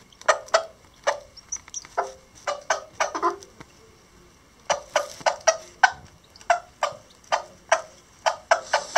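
Lavender Old English Game bantam hen giving short, clipped clucks in irregular runs, with a pause near the middle. These are the food call a mother hen makes to bring her newly hatched chicks to eat.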